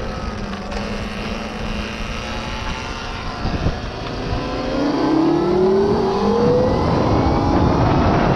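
Electric dirt bike's QS138 mid-drive hub-style motor whining under throttle. It runs at a steady low pitch at first, then rises steadily in pitch and gets louder from about halfway through as the bike accelerates. Heavy wind rush sits underneath.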